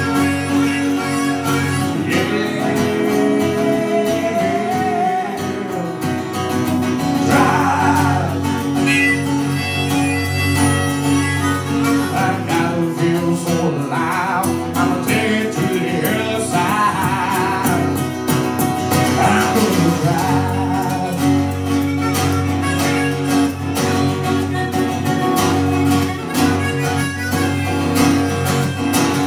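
Live acoustic guitar playing an original country-style song, with a higher lead melody that bends and wavers in pitch in several phrases over the steady chords.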